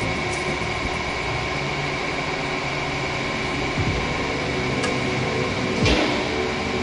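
Hydraulic press's pump motor running with a steady hum, with one sharp click near the end.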